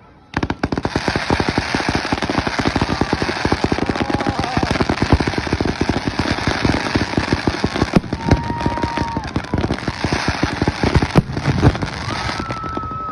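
Fireworks display: a dense, rapid barrage of bangs and crackles that starts abruptly about a third of a second in and keeps going, with a short steady whistle over it three times.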